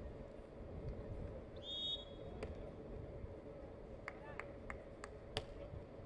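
A referee's whistle sounds once briefly, then a beach volleyball is struck five times over a few seconds: the serve and the contacts of a rally. Steady low background hum of the venue throughout.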